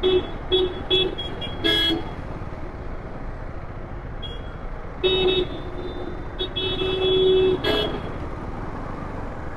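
Vehicle horns honking impatiently at a red signal, over the steady rumble of waiting traffic. There are several short toots in the first two seconds, more honks about halfway through, then a long held blast and one short blast after it.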